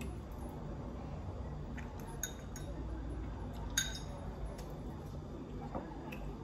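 Spoons clinking against dishes while eating ice cream: a handful of sharp, scattered clinks with a short ring, the loudest about four seconds in, over a steady low hum.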